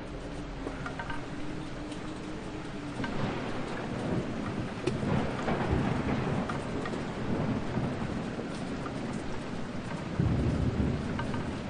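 Steady rain with thunder: a long rumbling roll builds about three seconds in, and a louder crack of thunder comes near the end.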